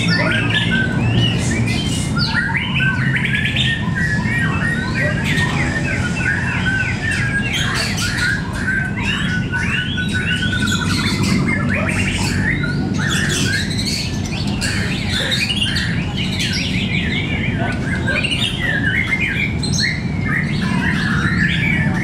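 Several caged white-rumped shamas (murai batu) singing against one another at once: dense, overlapping whistles, fast trills and harsh chattering calls, over a steady low hum.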